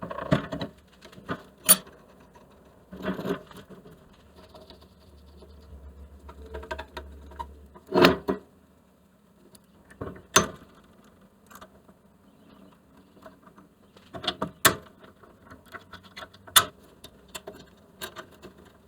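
Irregular clicks, clinks and knocks of tools and metal bandsaw parts being handled during disassembly, with a brief low buzz about midway.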